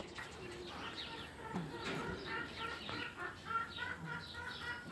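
Birds calling outdoors: many short, falling chirps overlapping one another throughout.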